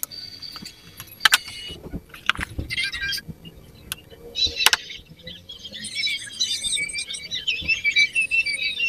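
A few sharp snips of side cutters trimming component leads in the first seconds, then small birds chirping and twittering repeatedly, busiest in the second half.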